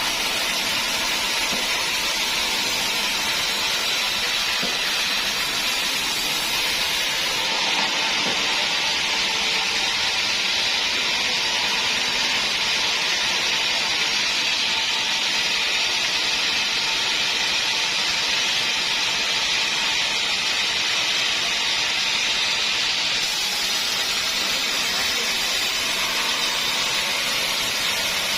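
Sawmill saw cutting steadily through dense acacia wood, a continuous hissing run with no breaks. The highest part of the hiss dulls for a long stretch in the middle.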